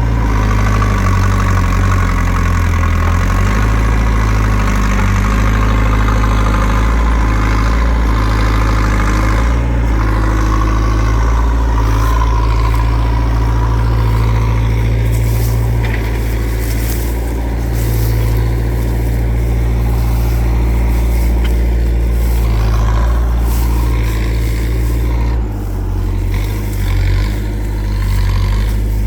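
JCB 3CX backhoe loader's diesel engine running with a loud, steady low rumble, dipping briefly near the end, with scattered knocks through the middle.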